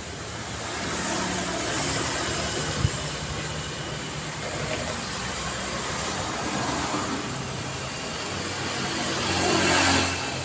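Road traffic passing on a city street: a steady wash of tyre and engine noise. A sharp knock comes about three seconds in, and one vehicle passes close near the end, swelling up and then dropping away.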